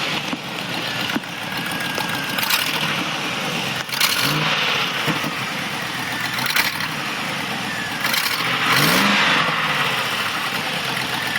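2004 Land Rover Discovery engine running with a clicking exhaust note like a muscle car, with two short revs, about four seconds in and near the end. The cause is a leaking exhaust manifold gasket.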